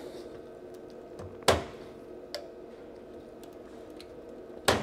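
Small plastic clicks and ticks as flat flex ribbon cables are pulled out of their connectors on a laser printer's circuit board, with two sharp clicks, one about a second and a half in and one near the end, over a faint steady hum.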